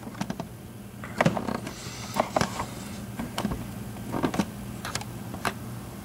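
Scattered light metal clicks and taps as a tubular cam lock is handled and seated in its service jig on a bench vise, over a low steady hum.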